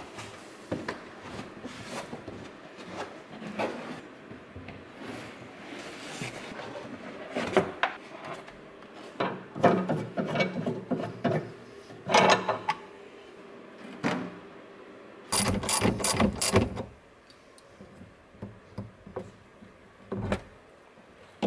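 Knocks and rattles of a car's trunk floor panel and spare wheel being handled, then a ratchet wrench clicking rapidly for about a second and a half, with a few more clicks near the end, as the battery terminal is undone to disconnect the battery.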